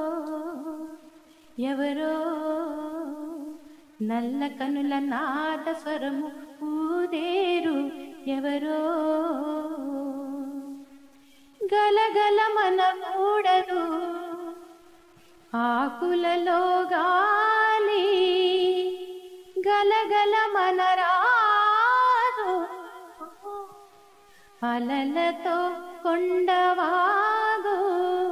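A woman singing a Telugu song unaccompanied, in phrases of long held notes that waver in pitch, with short pauses for breath between phrases.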